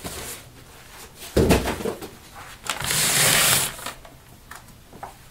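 Packaging being handled: a dull thump about a second and a half in, then a plastic bag rustling and crinkling for about a second as it is pulled off the boxed unit.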